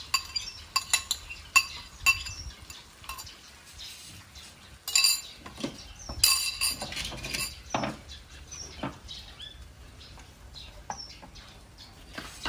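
Ceramic bowls and a wooden spatula clinking and knocking against each other and the pan: a run of quick clicks at first, then louder ringing clatters about five and six seconds in, and scattered small knocks after that.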